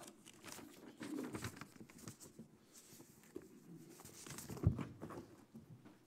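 Faint scattered small clicks and rustling from people moving in a quiet room, with one louder soft thump nearly five seconds in.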